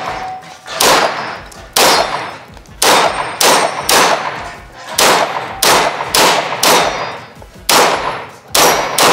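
A CZ Shadow 2 pistol being fired in a string of about a dozen shots, spaced half a second to a second apart, each followed by a short echo off the range walls.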